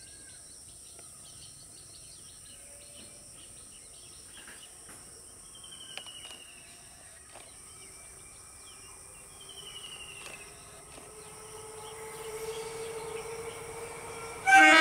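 Steady insect buzz and a few short falling bird whistles while an EMU electric local train approaches, its faint hum slowly rising in pitch. Near the end the train's horn sounds, suddenly and loudly.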